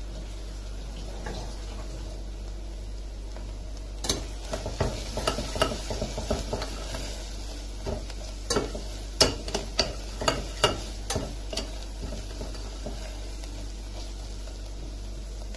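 A steel spoon stirring and scraping mutton, onions and spices frying in oil in a stainless steel pressure cooker. A run of metal clinks and scrapes against the pot starts about four seconds in and stops about twelve seconds in, over a steady low hum.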